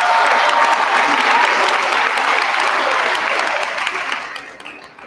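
Applause from a small seated group, clapping steadily and fading out about four seconds in.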